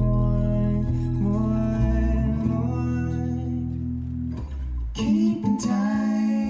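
Live acoustic string band playing: strummed acoustic guitar, electric bass and an F-style mandolin. The low bass notes drop away about five seconds in.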